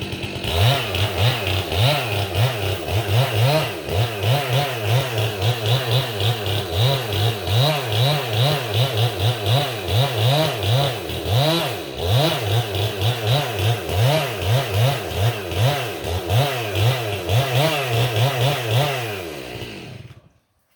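Two-stroke chainsaw running at high revs, its engine note rising and falling two or three times a second, then cutting off quickly near the end.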